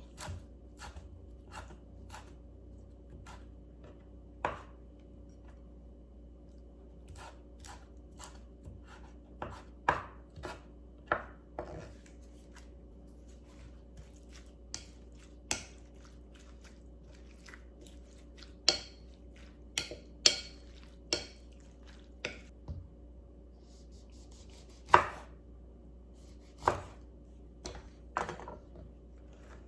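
Knife cutting food on a chopping board: single sharp knocks at irregular intervals, often a second or more apart, over a faint steady hum.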